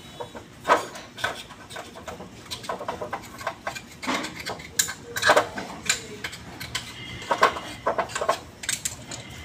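Metal starter-motor parts being handled in a metal tray: irregular clinks, knocks and scraping rubs as pieces are moved and rubbed against each other.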